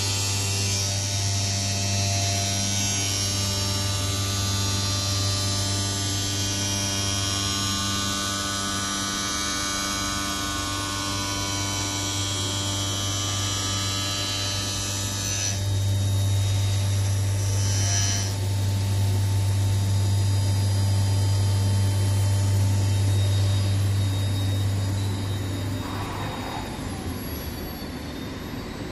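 CNC glass edging machine running: a steady motor hum with several constant whining tones and a high grinding hiss. About halfway through the hiss stops and the hum grows louder, then it eases off near the end.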